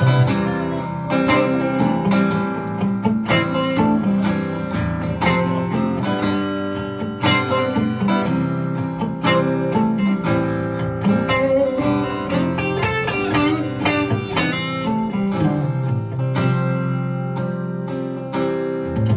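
Live instrumental passage on two guitars: an acoustic guitar strumming chords while an electric guitar picks a melody over it, with no singing.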